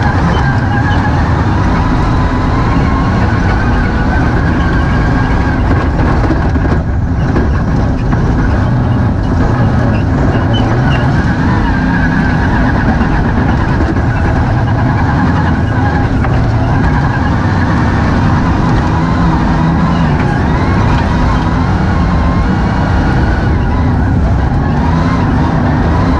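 MINI John Cooper Works Buggy rally-raid car, heard from inside its cockpit while driven hard over a desert track: its six-cylinder twin-turbo diesel engine and drivetrain run loud and continuous, the pitch rising and falling as the driver revs and shifts, over heavy road and wind noise.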